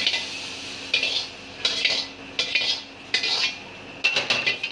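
Metal ladle scraping and clanking against a wok in about five short strokes, scooping the fried onion and tomato out into a bowl.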